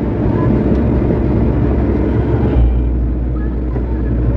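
Hydraulic excavator's diesel engine running under load while the boom and bucket move a load of turf and soil. The low drone grows stronger about two and a half seconds in.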